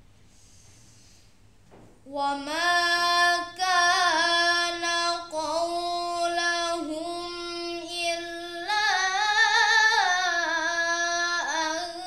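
A boy's voice in melodic Quranic recitation, starting about two seconds in: long held notes that waver in ornamented runs between phrases.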